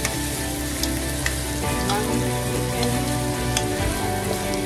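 Marinated chicken thighs sizzling as they brown in a nonstick frying pan: a steady frying hiss with small pops and clicks as the pieces are turned with tongs.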